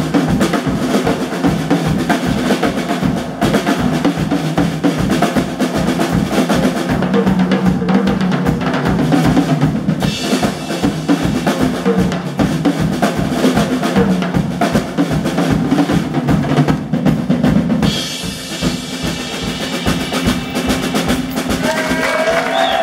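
Live rock band playing with electric guitars and bass over a busy, driving drum kit, the drums loudest. The playing thins out somewhat near the end.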